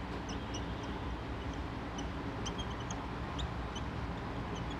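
Whiteboard marker squeaking in many short, high chirps as it writes, over a steady background hiss.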